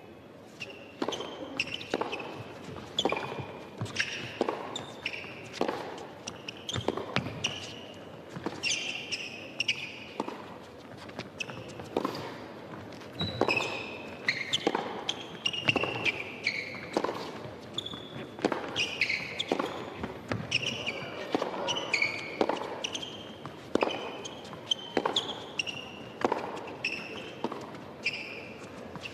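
Long tennis rally on an indoor hard court: racket strikes and ball bounces come about once a second, with short, high rubber-shoe squeaks on the court between the shots.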